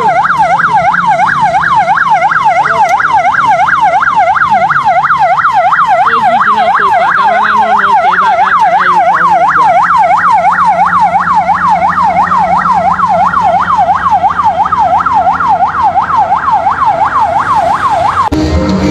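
A siren wailing in a fast rise-and-fall, about three sweeps a second, held steady, then cut off suddenly near the end.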